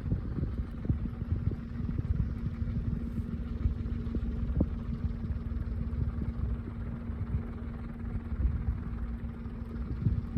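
Small 12 V DC ceiling fan running, a steady hum from its motor over an uneven low rumble.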